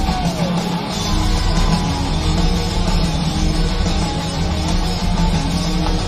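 Rock band playing live through a PA, with electric guitars and drums: a held note slides down and fades, and the full band comes back in about a second in.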